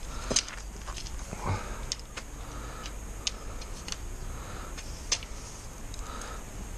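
Tent pole sections clicking and knocking as shock-corded poles are fitted together, a scatter of sharp ticks several times over.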